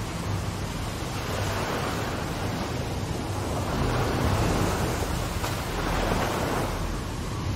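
Rushing, surging sea water of a huge ocean wave, a steady noise over a deep low rumble that swells a little about halfway through.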